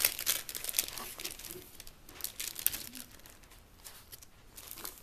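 Clear plastic film on a rolled diamond-painting canvas crinkling and crackling as a hand presses and smooths the canvas flat. The crackles come irregularly, busiest over the first few seconds and thinning out toward the end.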